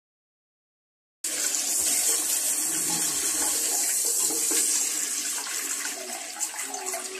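Water from a toilet hand-shower hose hissing steadily into a scaled boiler heat exchanger held in a toilet bowl, flushing it to test the flow. It starts abruptly about a second in and eases slightly near the end. The exchanger is still clogged with scale.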